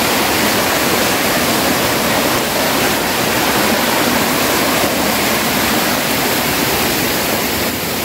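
Small waterfall cascading over rocks into a stream: a loud, steady rush of water.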